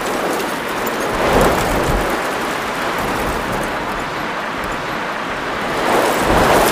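Violent storm: heavy wind-driven rain and gusting wind, a steady rushing noise that swells with a low rumble about a second in and again near the end.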